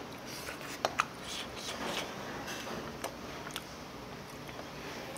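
Eating sounds at a table: a few sharp clicks of a spoon or chopsticks against dishes, with soft chewing in between.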